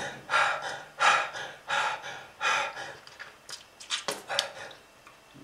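A person breathing hard in quick, noisy breaths, about one every 0.7 seconds, growing fainter near the end: labored breathing presented as a sign of smoking-related lung disease.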